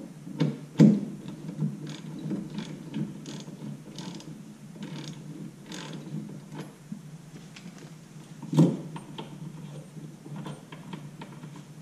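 Hand ratchet wrench clicking in short, irregular strokes as it tightens the brake caliper mounting-bracket bolts against the front upright, with two louder metallic knocks, one about a second in and one near the end.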